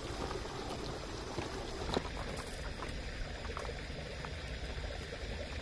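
Steady low outdoor background noise with a few faint clicks, one sharper click about two seconds in.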